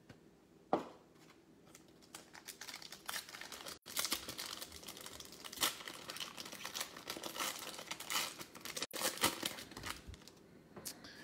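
Plastic wrapper of a Donruss football card pack crinkling and tearing as it is opened, along with trading cards handled in the hands. A single click comes about a second in, then the irregular crackling builds, is densest in the middle and thins out near the end.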